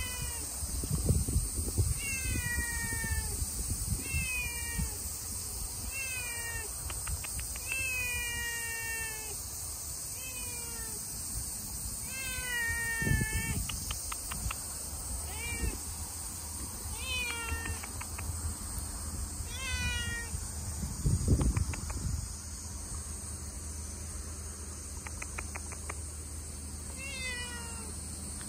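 A white stray cat meowing over and over, about ten meows that each fall in pitch, coming roughly every two seconds with a longer pause near the end. A few low thumps sound underneath.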